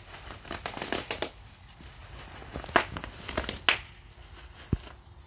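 Bubble wrap crinkling and popping as a dog bites and chews it: a run of small crackles about a second in, then three sharp separate pops. A dull thump near the end.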